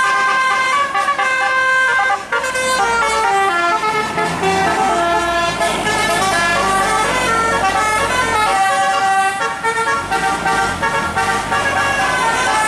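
A bus's telolet basuri horn, a set of electric air-horn trumpets, playing a melody in stepping notes with several tones sounding at once. A low bus engine rumble runs under it through the middle.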